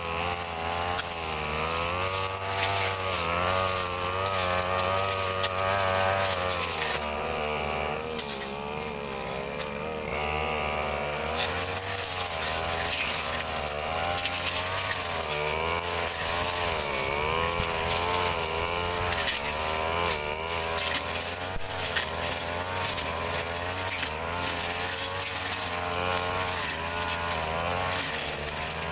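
Two-stroke brush cutter engine running continuously while cutting grass, its pitch rising and dipping as the engine speed changes.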